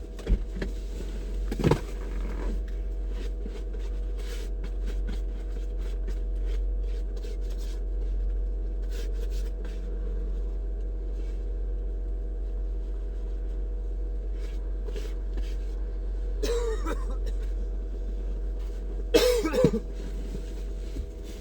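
Lexus GX 470's 4.7-litre V8 idling warm, heard from inside the cabin as a steady low hum.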